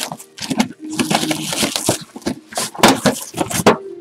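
Plastic shrink wrap on a sealed sports card box crinkling and tearing in rapid, irregular bursts as it is ripped open by hand.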